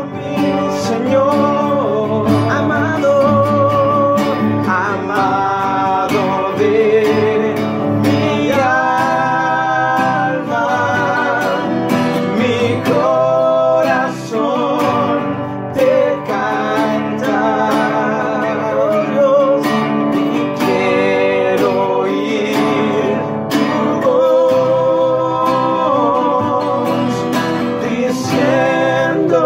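Two acoustic guitars strummed while a man sings a worship melody in long, wavering held notes.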